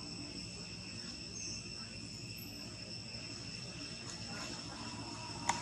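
Steady high-pitched insect chorus of trilling insects, holding several unchanging tones. A single sharp click comes near the end.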